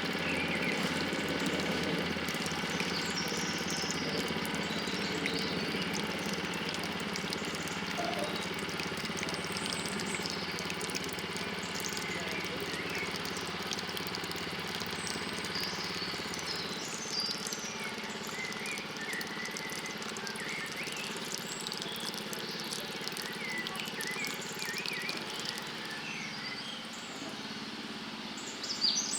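Spring water running steadily from a well spout, softer in the second half, with small birds chirping now and then.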